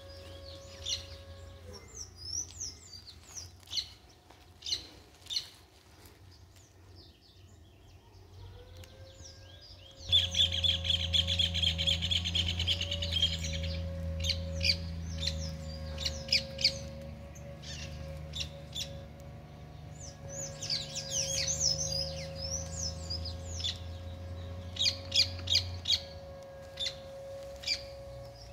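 Wild birds chirping and singing, with many short high calls and a rapid trill for a few seconds about a third of the way in. A steady low hum runs underneath.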